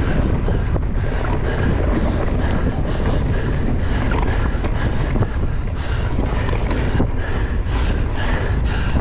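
Wind buffeting the microphone of a camera on a moving bicycle, a loud, steady low rumble.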